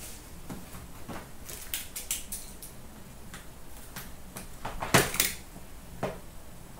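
Hands handling a sealed cardboard box of hockey cards: scattered light taps and clicks, with a louder knock about five seconds in and another about a second later as the box is set down and picked up.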